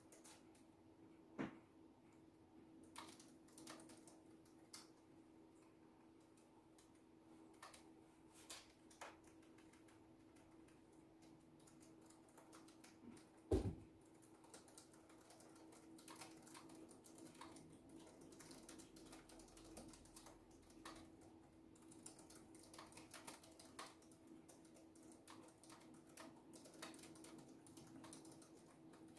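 Faint typing on a keyboard: scattered soft key clicks over a steady low hum, with one louder thump about halfway through.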